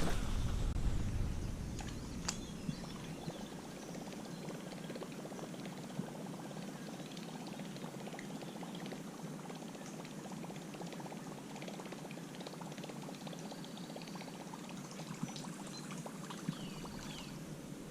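Googan Revolver topwater lure retrieved across the surface, its hard plastic middle section spinning and churning the water in a steady gurgling chop.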